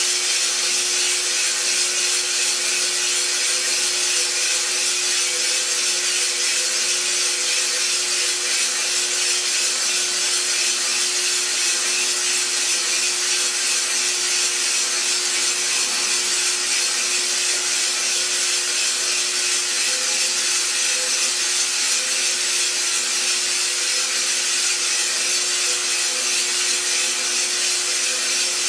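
iRoaster 600 drum coffee roaster running steadily: a constant hiss with a low motor hum, and green coffee beans tumbling in the rotating drum. The beans are still green, so this is the early drying stage of the roast, before first crack.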